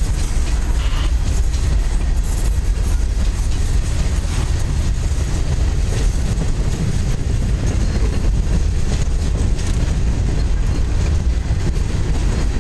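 Freight train cars (boxcars and covered hoppers) rolling past close by: a steady low rumble of steel wheels on the rails, with occasional faint clicks.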